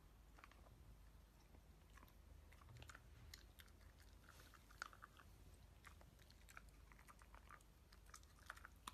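Dachshund chewing on a small chew: faint, irregular crunching and clicking of teeth.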